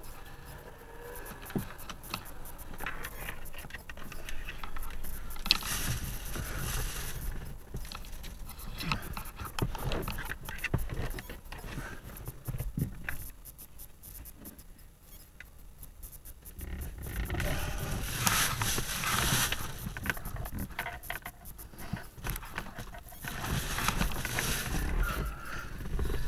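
Handling noise from a dashcam being touched and adjusted: scraping, rubbing and small knocks close to the microphone, in uneven stretches.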